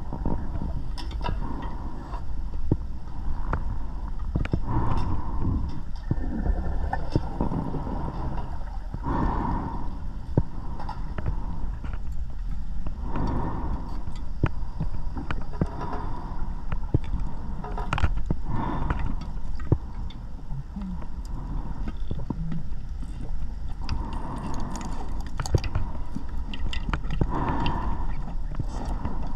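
Scuba divers' breathing heard underwater: exhaled bubbles gurgle in irregular bursts every two or three seconds over a steady low rumble, with scattered small clicks.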